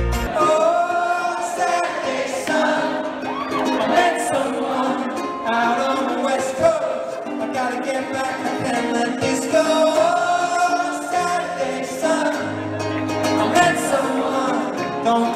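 Live concert music heard from the audience: a singer with a ukulele on stage, and a sung melody without clear words.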